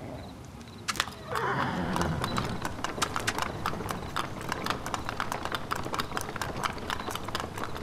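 Two carriage horses setting off and pulling an open carriage away, hooves clip-clopping in a quick, steady run of sharp clicks on a hard surface from about a second in. One horse whinnies briefly as they start.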